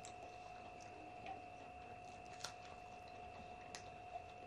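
Quiet eating sounds: a few faint, scattered clicks of chewing and mouth noises, over a steady faint electrical whine.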